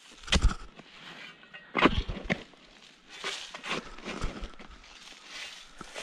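A metal shovel digging into forest soil: a few sharp strikes and scrapes of the blade in the earth in the first half, then softer, scattered scrapes.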